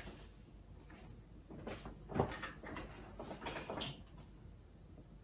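A few scattered soft knocks and clunks with some handling rustle, the loudest a single sharp knock about two seconds in.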